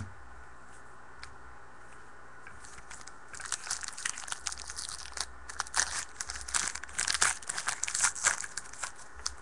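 A trading-card pack wrapper being torn open and crinkled by hand. A dense, irregular crackling starts about three seconds in and keeps going almost to the end.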